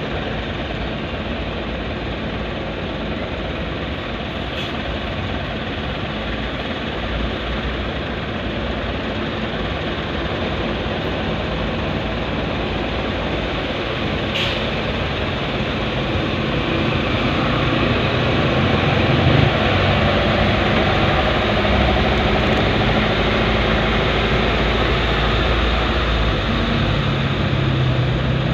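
Slow city traffic heard from inside a car: steady engine and road noise from the surrounding cars and trucks. About two-thirds of the way through it grows louder, with a deeper engine hum.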